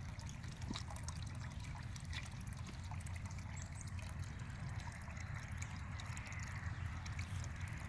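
Water from a pond filter's outlet pipe trickling steadily into the pond.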